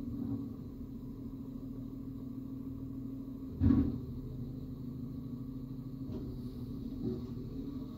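Labrie Expert 2000 automated side-loader garbage truck's diesel engine running steadily with the hydraulics working as the arm lowers an emptied compost bin back to the curb. A single loud thump comes about three and a half seconds in as the bin is set down.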